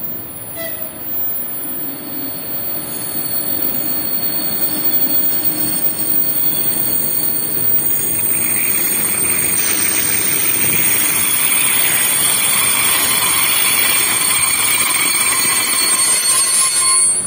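A ČD class 362 electric locomotive and its passenger coaches running into the platform, the rumble of wheels on rails growing louder as it comes near. About halfway through, a high squeal of braking wheels sets in and holds as the train slows past.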